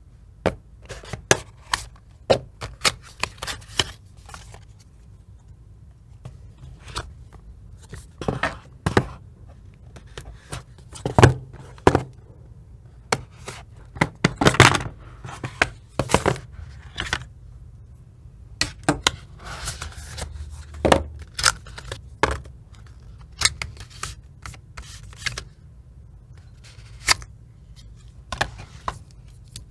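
Stiff cardboard packaging and accessories being handled on a table: irregular taps, clicks and knocks as boxes, lids and trays are lifted, opened and set down, with some sliding and scraping, over a low steady hum.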